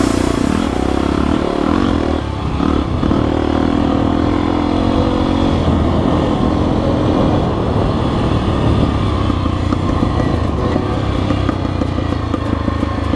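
Honda XR 250 Tornado's single-cylinder four-stroke engine running steadily under way, with a brief drop in engine note about two seconds in.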